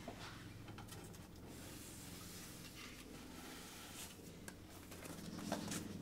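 Faint rustling and a few light knocks as a cardboard product box is slid off a shelf and handled.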